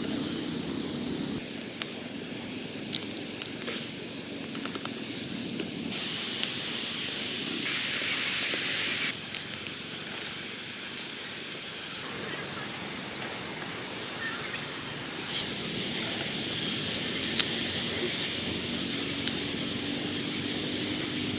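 Outdoor ambience: a steady hiss with scattered short clicks and rustles, and faint high chirps, changing abruptly in character a few times.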